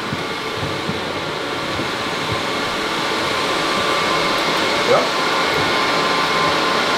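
Steady rushing drone of a data centre server hall's fans and cooling air, with faint steady whining tones in it. It grows louder as the hall is entered.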